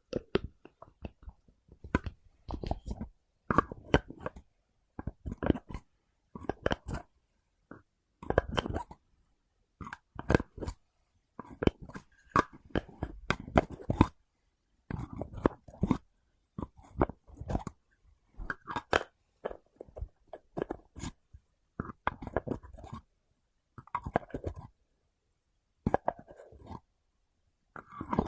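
Close-miked ASMR trigger sounds: short clusters of crisp knocking and crunching, one cluster about every second and a half with silence between.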